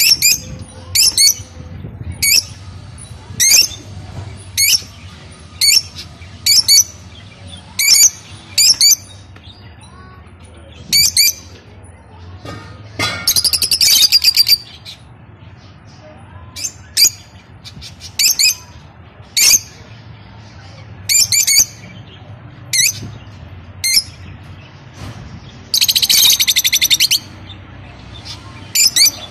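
Lovebirds calling: short, sharp, high chirps about once a second, broken by two longer rapid chattering runs, one about halfway through and one near the end.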